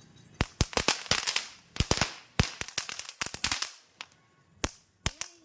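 Firecrackers going off: an irregular string of sharp cracks, some bunched in quick clusters, with a short lull about four seconds in.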